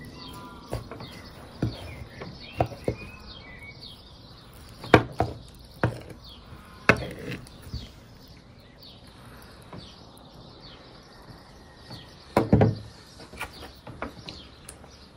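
A steel kitchen knife cutting through a soft rice-and-apple pudding in an earthenware bowl, the blade knocking and scraping against the clay in a series of sharp, irregular clicks. Small birds chirp faintly in the background during the first few seconds.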